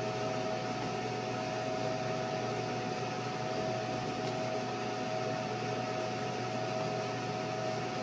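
Fume extraction fan running steadily on a laser cutter as it cuts Kydex, drawing the smoke off through a flexible aluminium duct: an even whir with a steady hum tone.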